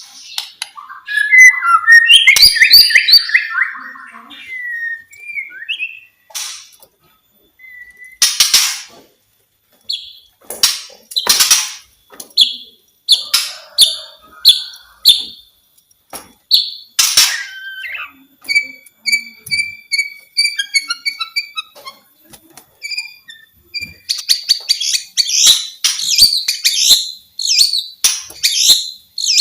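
White-rumped shama (murai batu) singing a varied song: loud whistled phrases, strings of repeated clear notes, and short harsh rasping calls, ending in a fast run of notes.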